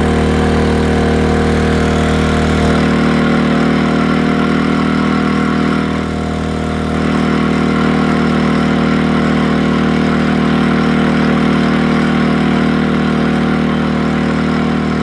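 Westinghouse iGen2550 inverter generator running steadily, with a brief dip in level about six seconds in before it settles back.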